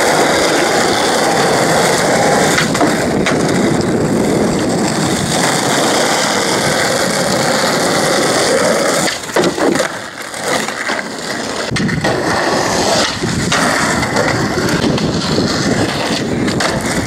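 Skateboard wheels rolling over asphalt close to the microphone, a steady loud rumble for about nine seconds. It then drops briefly and goes on more unevenly, ending with the scrape and clacks of trucks grinding a concrete ledge.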